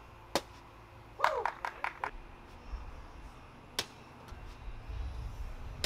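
A few sharp clacks and knocks, bean bags striking the toss board: one early, a quick cluster of several about a second in, and single ones later. A low wind rumble on the microphone rises near the end.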